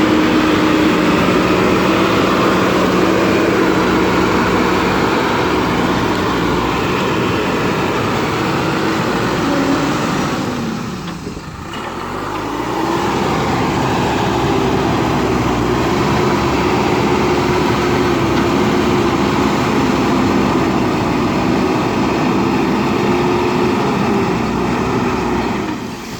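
JCB backhoe loader's diesel engine running steadily at working revs. About halfway through, the revs drop away briefly, then climb back up and hold.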